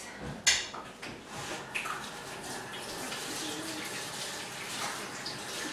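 Kitchen sink tap running steadily while hands are washed under it, after a short sharp sound about half a second in.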